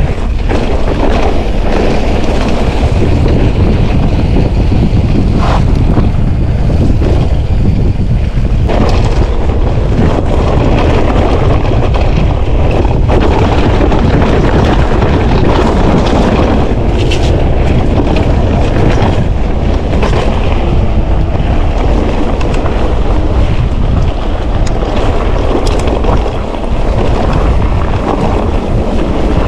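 Loud wind buffeting the camera microphone while riding a Propain Ekano electric mountain bike down rough trail, with scattered knocks and rattles from the bike.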